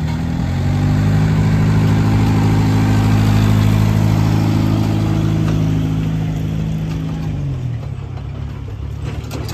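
Engine of a park toy-train locomotive, which the onlooker takes to be diesel, running steadily as the train passes close by. Its pitch rises slightly in the first second, holds, then drops and fades about seven and a half seconds in as the locomotive goes past.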